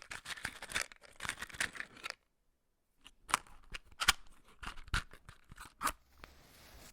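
About two seconds of small clicks and rustles as a matchbox is handled and a match picked out. After a short pause, a match head is scraped against the striker four times, about a second apart, with a faint hiss at the end.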